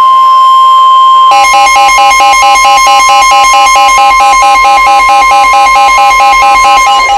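Emergency Alert System alert tone for a special marine warning: a loud, steady single-pitch tone, joined about a second in by a rapid pulsing beep at roughly four to five pulses a second.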